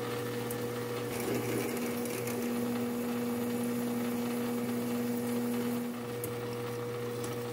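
Metal lathe running while a twist drill fed from the tailstock bores through a metal part spinning in the four-jaw chuck, enlarging the hole toward tapping-drill size. A steady machine hum, with one lower tone growing stronger about a second in and easing off about six seconds in.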